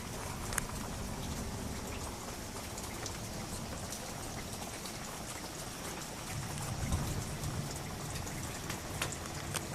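Steady rain during a thunderstorm, with many individual drops ticking close by. A low rumble swells briefly about seven seconds in.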